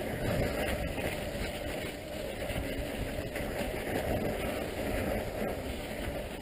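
Mountain bike rolling along a snow-covered dirt trail: a steady rumble of wind on the ride-along camera's microphone, with the tyres crunching over snow and an occasional click from the bike rattling.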